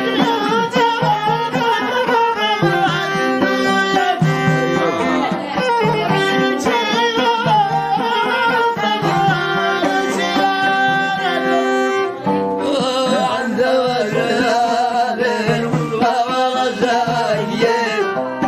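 Traditional Amazigh folk music: melodic instruments over a hand-drum rhythm, with a brief break and a new passage about twelve seconds in.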